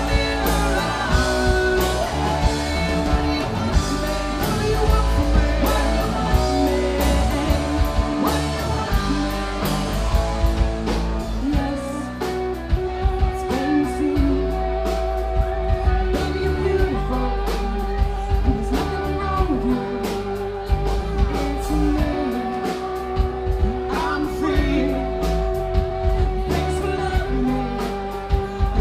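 Rock band playing a pop-rock song with a singer, guitar and drums; from about halfway on, long held notes sustain over the beat.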